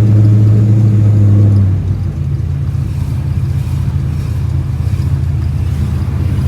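Vehicle engine and road drone heard while driving: a steady low hum that drops lower and quieter about two seconds in, then carries on evenly.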